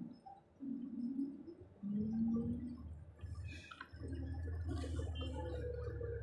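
John Deere tractor loader's diesel engine running while the loader reverses, its pitch rising and falling in short spells, then settling into a steady low rumble about four seconds in.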